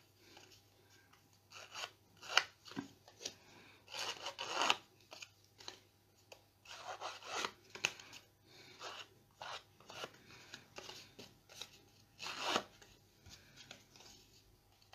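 Ink blending tool scrubbed over the edges of a small piece of cardstock to apply distress ink: irregular short scratchy rubbing strokes, some louder than others.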